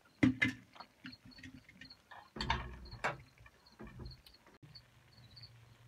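Sharp metal knocks and clatters of cookware being handled, a steel pot and a metal jug, loudest twice right at the start and again in the middle. A faint high chirping of insects repeats a few times a second throughout.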